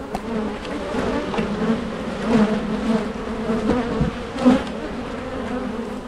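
Honey bees from an opened hive buzzing in a steady hum, with a couple of louder swells about two and four and a half seconds in.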